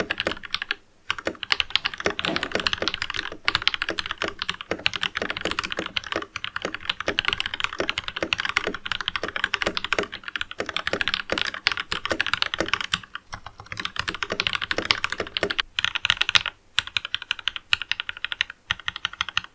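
Mechanical keyboard with Jwick Red linear switches being typed on fast and continuously, a dense run of key clacks with a few brief pauses.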